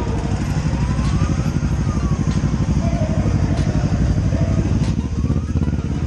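Motorcycle engines running in slow, dense traffic: a steady, rapid low putter, with a higher engine note that rises and falls twice as throttles are opened and closed.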